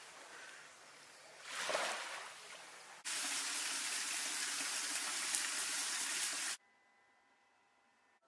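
Waves washing on a beach, swelling once about two seconds in. About three seconds in it cuts to a loud, steady rush of running tap water while a fish is cleaned with a knife, which stops abruptly about three and a half seconds later, leaving only faint steady tones.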